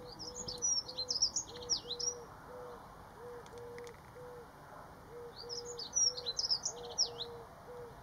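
Dunnock singing: two short, fast, high warbling phrases, one at the start and another about five seconds in. Under them runs a steady series of short, low notes, repeated about twice a second.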